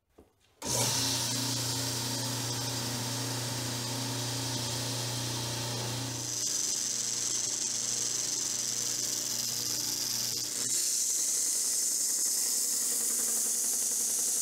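Homemade 1x42 belt and disc sander switched on for the first time, its electric motor and belt starting suddenly about half a second in and running steadily with a low hum. In the second half a higher hiss takes over, and by the end a piece of wood is being sanded against the running belt.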